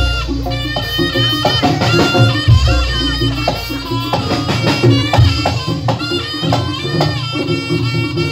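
Jaranan senterewe music from an East Javanese gamelan-style ensemble: ringing pitched percussion over steady drumming, with deep low strokes near the start and about two and a half seconds in.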